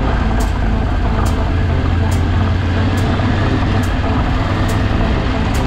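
Motor vehicle driving off-road: a steady low engine and drivetrain drone with road noise. A short, high tick repeats evenly a little faster than once a second throughout.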